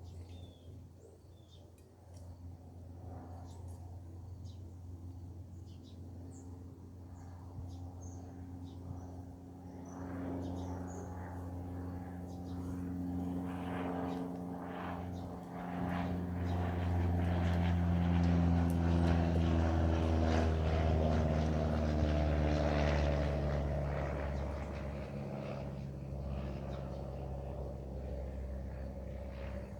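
Propeller airplane passing overhead: its engine drone swells over several seconds and then fades, the pitch slowly falling as it goes by.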